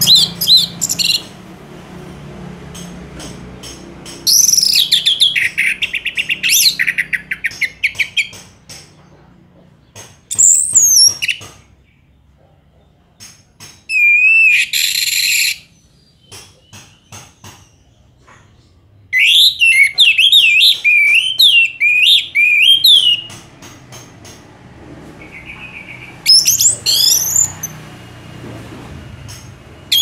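Orange-headed thrush (Geokichla citrina) singing: about six loud phrases of fast, varied whistles and trills, each lasting one to four seconds, separated by pauses with short sharp clicks between them.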